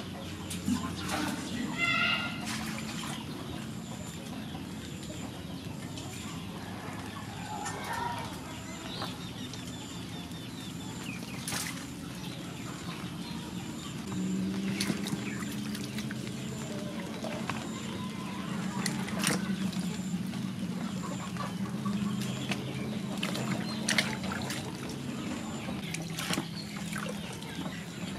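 Water poured from a small metal bowl and sloshed as vegetables are washed by hand in a steel basin, with scattered knocks and clinks of the bowls and a wicker basket. A bird calls briefly about two seconds in, and a low steady hum comes in about halfway through.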